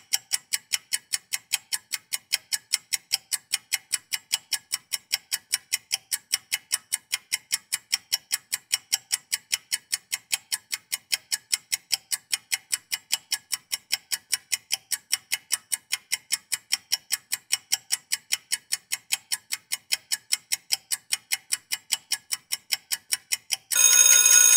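Countdown-timer clock ticking, an even run of crisp ticks at several per second. About a second before the end, a loud ringing alarm starts as the timer runs out.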